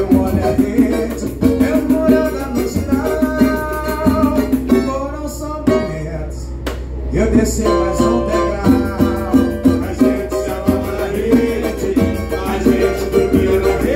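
Live samba played on a cavaquinho, a pandeiro and a wooden hand drum, with voices singing along; the pandeiro's jingling strokes thin out for a moment about five seconds in.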